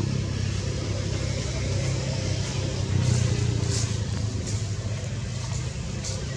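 Steady low rumble of a running vehicle engine, with a few brief high hissy sounds over it.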